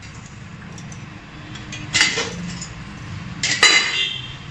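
Stainless steel idli cooker lid being lifted off and set down: two metallic clanks, about two seconds in and again near the end, the second with a brief ringing.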